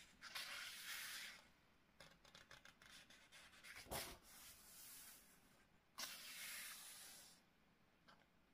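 Pages of a heavy hardcover art book being turned and smoothed by hand: faint paper rustling and rubbing, with one sharper page flap about four seconds in.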